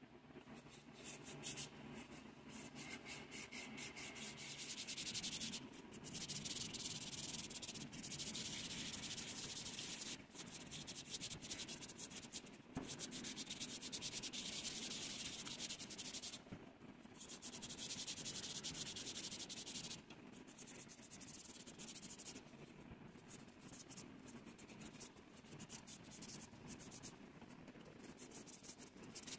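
Brass bowl being hand-sanded with a sheet of abrasive paper: rapid back-and-forth scratchy strokes in runs of several seconds, broken by short pauses.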